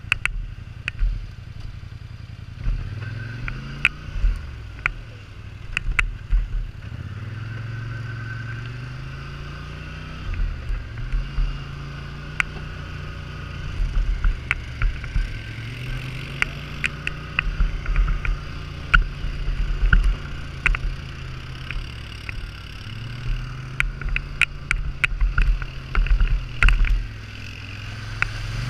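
Polaris Sportsman 850 ATV's twin-cylinder engine running, its pitch rising and falling again and again as the throttle is opened and closed over rough ground. Many sharp clicks and knocks come through it, thickest in the second half.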